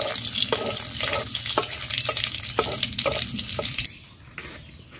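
Whole garam masala, dried red chillies and a bay leaf sizzling in hot mustard oil in a kadai, the tempering being stirred, with sharp knocks of the spatula against the pan about every half second. Near the end the sizzling cuts off abruptly, leaving a quieter stretch with a few faint knocks.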